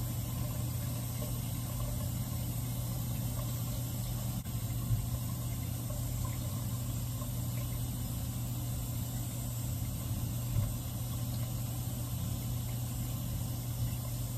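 Bathroom exhaust fan running: a steady low hum with a soft hiss over it, broken by two or three brief soft knocks.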